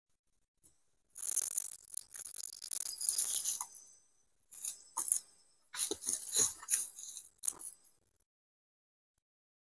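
Rattling and scraping of bamboo poles and cord as a lashed bamboo frame is worked by hand, in three spells: a long one starting about a second in, a short one near the middle and another just after.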